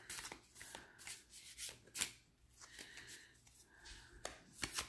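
A deck of thin, glossy tarot cards being shuffled by hand: a run of light, irregular card slaps and slides as packets are passed from hand to hand.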